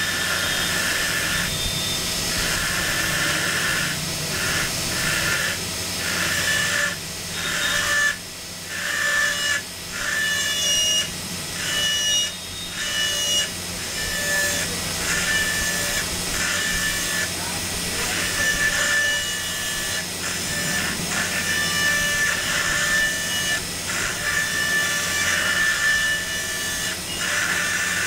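NSK air-turbine dental handpiece with a straight fissure bur cutting a class V cavity into a model tooth: a steady high whine over air hiss. It stops and restarts several times about a third of the way in.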